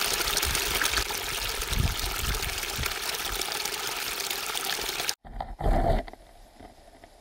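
Small waterfall cascading over rocks into a pool, a steady rush of water that cuts off suddenly about five seconds in. A brief low rumble follows, then only a faint hiss.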